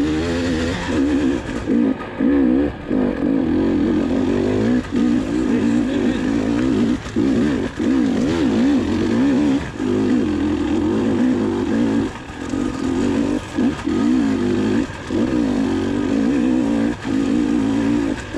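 GasGas dirt bike engine revving up and down as the rider works the throttle over rough singletrack, with short drops in sound each time the throttle is shut.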